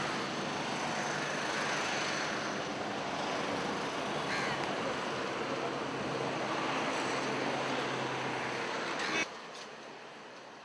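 Steady outdoor road traffic noise with a low engine hum, swelling gently a couple of times as vehicles pass, then cutting off abruptly about nine seconds in.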